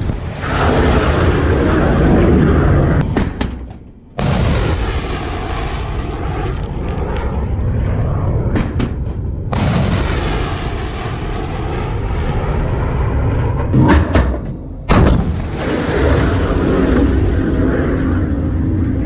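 Surface-to-air missiles launching: the loud rushing roar of the rocket motors at lift-off and climb-out, broken twice by abrupt cuts between launches, with two sharp bangs about three quarters of the way through.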